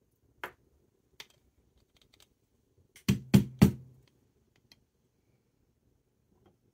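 A light click near the start, then three quick, loud knocks a few tenths of a second apart about three seconds in: an espresso portafilter with an aluminium dosing funnel tapped to settle the coffee grounds after distribution.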